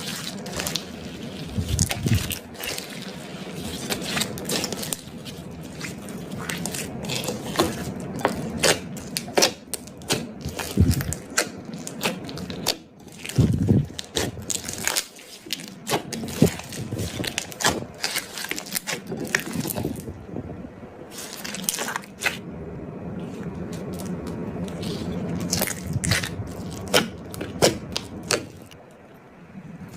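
Sticky slime being squished and worked by hand, making a run of wet clicks, pops and crackles with occasional soft thuds.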